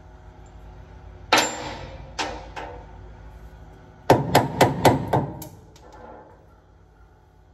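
Mallet blows on the wishbone mount of a race car's rear end, knocking the wishbone free. Three spaced blows come first, then a quick run of about six blows, about four a second, with a short ring after each.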